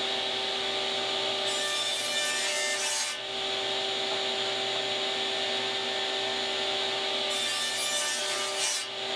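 Table saw running at a steady hum while boards are fed along a sled. Twice, for about a second and a half each, a higher hissing rasp of wood against the blade and sled.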